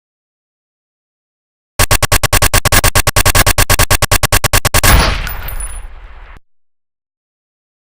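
Automatic gunfire sound effect: a rapid burst of about ten shots a second for some three seconds, ending in a heavier blast whose echo dies away before cutting off abruptly.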